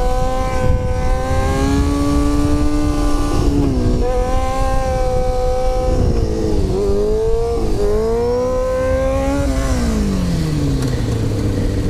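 Sport bike engine under way. Its pitch climbs and drops back about three times as it pulls and shifts, then winds down to a low idle near the end as the bike slows. A low rush of wind and road noise runs under it.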